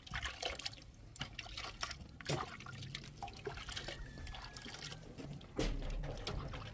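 Water dripping and splashing in irregular wet clicks, with a low bump about five and a half seconds in.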